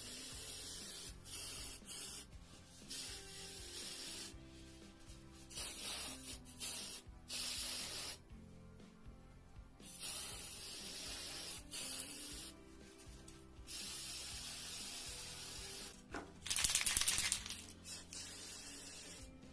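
Stop-start bursts of rubbing, hissing noise from cleaning and abrasive work on a brass blow torch, each lasting a second or two, with a louder burst near the end. Soft background music plays underneath.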